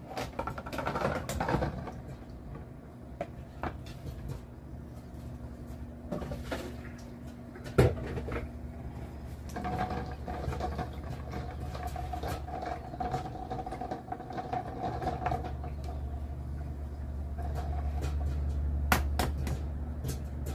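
Old microwave running with a steady hum while popcorn pops inside now and then, mixed with the light clatter of eggs and a plastic steamer lid being handled. One sharp pop about eight seconds in is the loudest sound.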